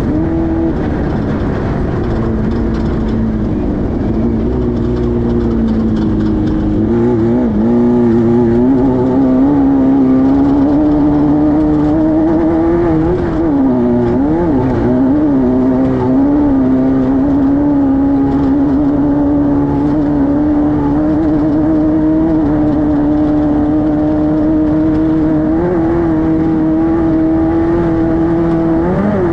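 Air-cooled 1600cc Volkswagen flat-four engine of a Class 5-1600 off-road race car running hard at high revs. The engine speed dips and picks up again a few times around the middle, then holds steady.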